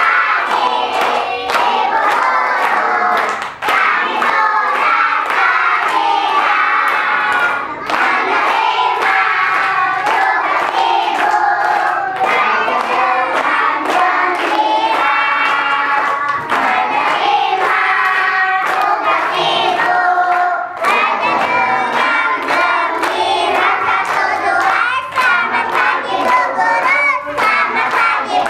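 A group of young children and adults singing together while clapping their hands in a steady rhythm.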